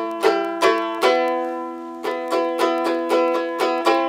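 Outro music played on a plucked-string instrument: a quick melody of bright notes that ring and fade, about three a second, with one note held longer about a second in.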